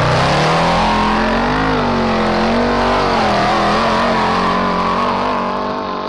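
A small vehicle's engine at high revs, its pitch climbing over the first second and a half and then holding with small wobbles, over a loud rushing noise.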